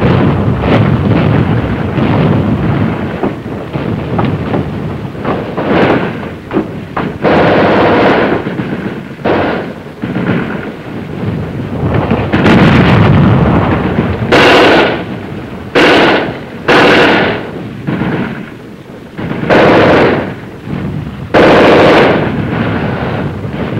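Battle gunfire on a 1950s film soundtrack: a steady run of rifle shots, then several short, loud bursts of fire a second or so apart in the second half.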